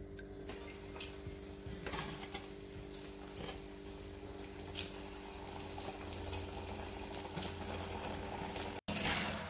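Breaded cauliflower cutlet deep-frying in hot oil in a kadai: a steady sizzle with scattered crackles and pops, over a low steady hum.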